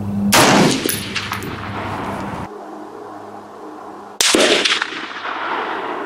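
Two shots from a Springfield M1A SOCOM rifle in 7.62×51 mm (.308) fired over iron sights: one sharp report just after the start and another about four seconds later, each ringing out and fading.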